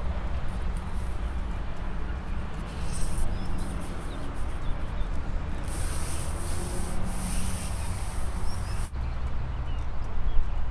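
Wind buffeting the microphone: a steady low rumble with rough rustling, and a high hiss that comes in for about three seconds around the middle.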